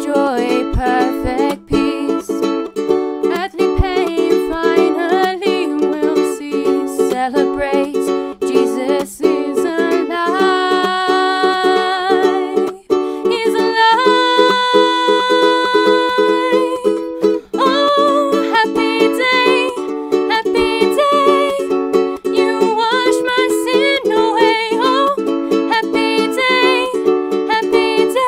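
A ukulele strumming chords as accompaniment to young women's voices singing an upbeat worship song, with long held sung notes about ten and fifteen seconds in.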